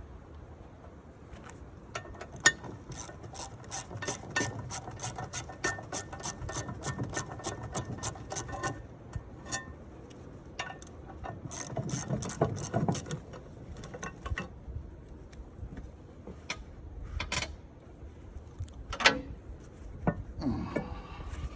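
Hand ratchet wrench clicking rapidly, about four clicks a second, as bolts are worked loose on a Gearmatic 9 winch. It is followed by scattered metal knocks and clinks of tools and parts.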